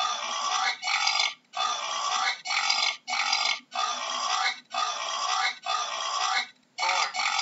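A boar grunting over and over, its calls coming in quick succession about once a second, with a short break near the end.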